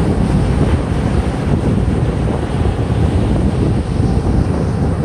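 Wind buffeting the microphone in a loud, steady low rumble, over ocean surf breaking and washing up the beach.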